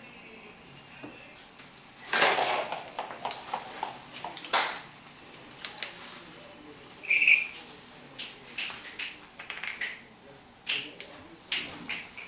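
Plastic baby-bottle parts, caps and bags clattering and rustling as they are handled and dropped on a tile floor: a string of small clicks and knocks, the loudest a rattle about two seconds in, with a short high squeak about seven seconds in.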